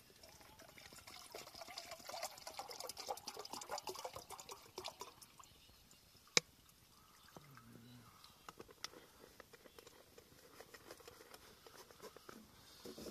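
Water poured from a plastic bottle into a metal pot, splashing and trickling for about five seconds. A single sharp click follows a second later, then a few faint crackles.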